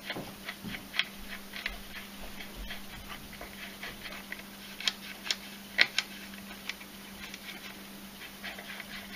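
Scattered light clicks and ticks of the amplifier's potentiometers being worked back and forth on the removed back panel, to spread freshly sprayed contact cleaner through the scratchy pots. A few sharper clicks come near the middle, over a faint steady hum.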